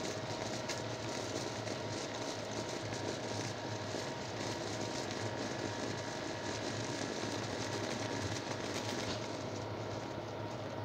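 An old 50-volt mains transformer buzzing steadily under heavy load, pushing about 80 amps of AC into a 12-volt sealed lead-acid battery. The battery is being cooked and vents steam with a steady hiss, which thins about nine seconds in.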